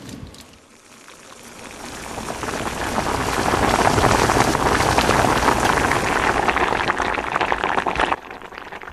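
A pot of oyster broth with sliced rice cakes boiling hard. The bubbling swells over the first few seconds and cuts off suddenly near the end.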